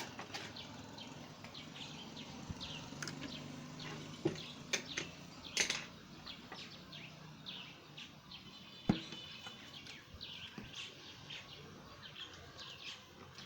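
Small birds chirping over and over in the background, short quick chirps, with a few sharp clicks around the middle.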